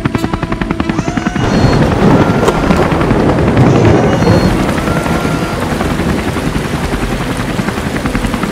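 Cartoon helicopter sound effect: a steady rotor chop, joined about a second and a half in by a loud rush of water, strongest in the middle and easing off while the chopping goes on.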